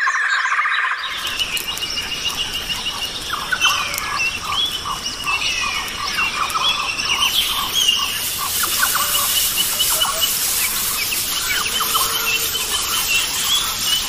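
Rainforest ambience: many birds calling and chirping over a steady background hiss, with a run of short, quickly repeated notes in the first half. The background grows fuller about a second in.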